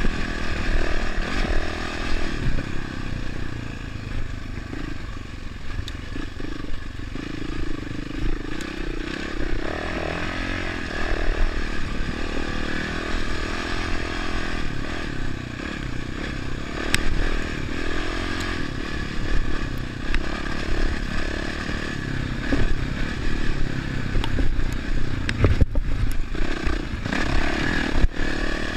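Dirt bike engine running as the bike is ridden up a rutted dirt track, the throttle rising and falling. Clattering knocks come from the bike over the bumps, most of them near the end.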